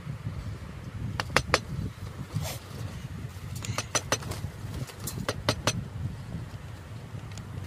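Wooden mallet tapping a chisel, cutting a shallow recess into the edge of a painted panel: sharp taps in quick runs of three or four, a couple of seconds apart, over a low steady rumble.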